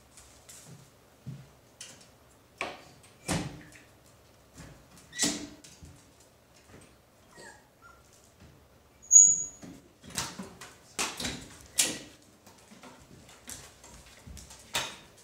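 Alaskan Klee Kai puppies play-fighting: scattered short yips and scuffles on a fleece bed, coming in uneven bursts, with one brief high squeak about nine seconds in.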